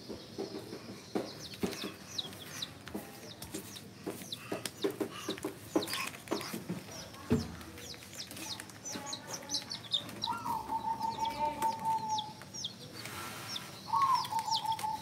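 Dyed baby chicks peeping in quick, high, falling cheeps, with light knocks and rustles as they are handled in a plastic crate. Twice in the second half a longer, lower drawn-out call rises over the peeping.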